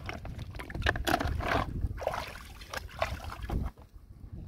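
Shallow water sloshing and splashing irregularly as hands and legs move through it, over a low rumble that stops sharply near the end.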